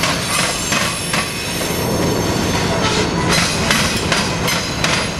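CSX freight cars rolling over a railroad diamond crossing: wheels clank irregularly across the crossing over a steady rumble, with thin high-pitched wheel squeal.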